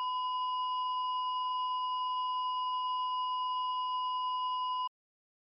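A single steady, high-pitched electronic test tone, held unchanging for about five seconds and cutting off suddenly near the end.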